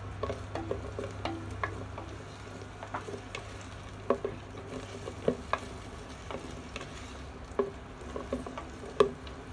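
A spatula stirring onion, garlic and ginger sautéing in a stainless steel pot, with irregular scrapes and taps against the metal over a light sizzle of oil. A steady low hum runs underneath.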